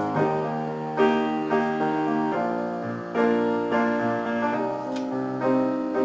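Grand piano played solo: sustained chords struck and held, changing about every one to two seconds.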